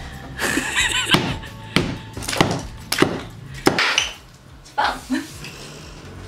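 Hammer blows knocking down a brick and plaster wall: a run of sharp knocks, about one every half to two-thirds of a second, with a short pause around the middle.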